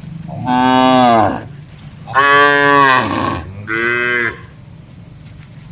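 Cow mooing three times in close succession, the third call shorter than the first two.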